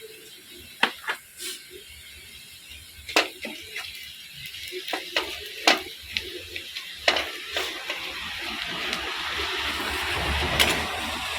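A spoon knocking and scraping against a cooking pot as onions and ground spices are stirred in hot oil. A sizzle builds in the second half and is loudest near the end.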